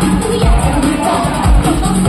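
Upbeat idol pop song played loud over a live stage sound system, with a steady kick drum beat and a bass line.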